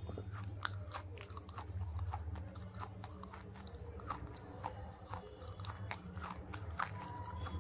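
Close-miked chewing of a dry, chalky bar: irregular small crunches and crackles in the mouth, over a steady low hum.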